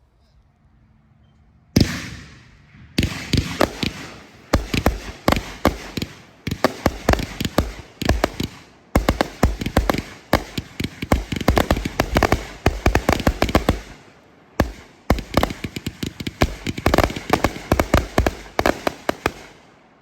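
A 1500-gram consumer firework finale set, three 500-gram cakes lit together, firing its shots. There is one bang about two seconds in, then a rapid run of sharp bangs with a brief pause about two-thirds of the way through, stopping just before the end.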